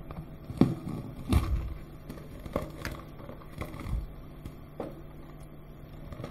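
Clear plastic film crinkling and crackling as it is handled and crumpled in the hands, in a series of separate sharp crackles, the loudest two in the first second and a half.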